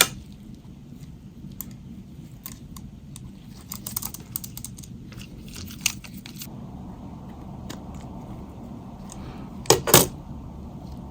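Small tools clicking and tapping against the plastic parts of a Nokia 3350 phone as it is taken apart: scattered light clicks, then two sharp, loud clicks close together near the end.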